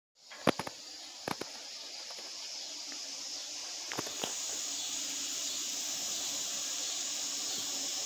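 Steady hiss that slowly grows louder, with a few sharp clicks in the first few seconds.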